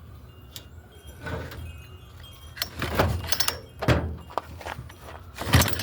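Chainsaw recoil starter rope yanked about four times with the switch off, each pull a short rasp as the two-stroke engine turns over on compression without firing. The pulls are hard going.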